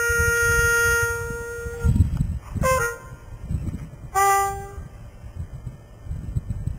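Brass horn playing a jazz phrase: a long held note for about two seconds, a quick rising run of short notes near the three-second mark, then a shorter, lower note about four seconds in. A low rumble runs underneath.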